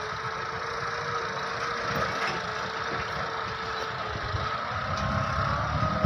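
Tractor engine running steadily as it pulls a Grimme potato digger, with a steady tone held over the low engine rumble.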